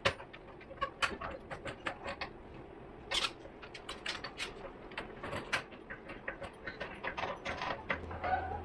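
Hydraulic floor jack being pumped by its long handle under load, its pump mechanism clicking and clacking sharply and irregularly with the strokes as it raises the vehicle.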